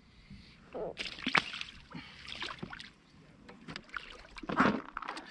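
Water splashing as a carp is released back into the lake by hand. The sharpest splash comes about a second and a half in, followed by smaller, irregular splashes and knocks.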